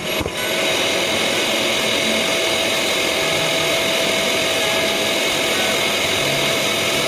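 Long-reach drywall sander with its dust-extraction hose, running steadily: an even hiss of motor and suction with a steady whine.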